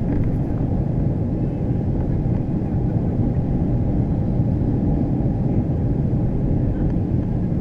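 Steady cabin noise of a Boeing 737-300 in descent: its CFM56-3 engines and the rush of air past the fuselage, heard from a window seat over the wing. The sound is a low, even rumble-hiss with no change in level.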